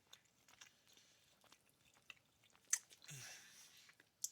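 A person chewing food with faint wet mouth clicks. A sharper click comes about two and a half seconds in, then a breathy hiss lasting nearly a second, and another sharp click at the very end.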